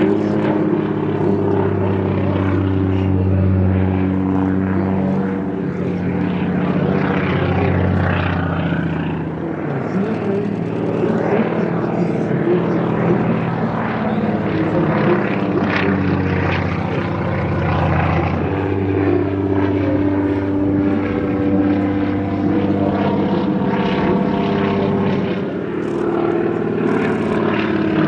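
Boeing Stearman biplane's radial engine and propeller running through an aerobatic display, the engine note rising and falling as the plane manoeuvres.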